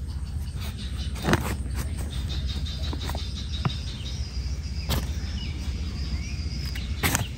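A few short soft clicks and rustles as fingers press soil around a seedling in a plastic polybag, over a steady low outdoor rumble with faint high chirps.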